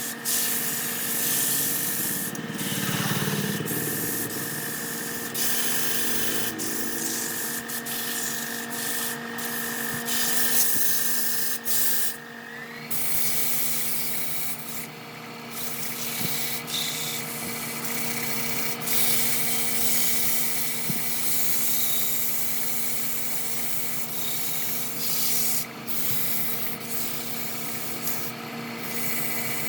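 Abrasive sanding against a wooden workpiece spinning on a wood lathe. The rasp lifts off and returns several times over a steady motor hum, which steps up in pitch a little under halfway through.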